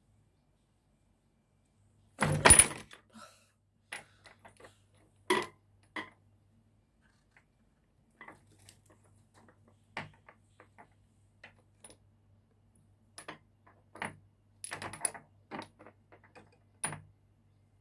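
Irregular knocks, taps and clatters of things striking a hard tabletop. A loud jangling clatter comes about two seconds in, and a scattering of lighter knocks and taps follows.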